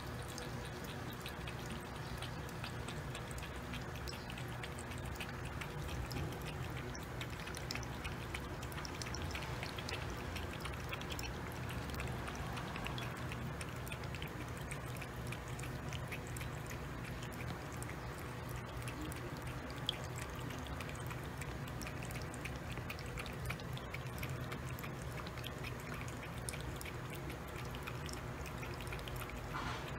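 A cat lapping water from a ceramic bowl: a quick run of small wet laps, over a steady low hum.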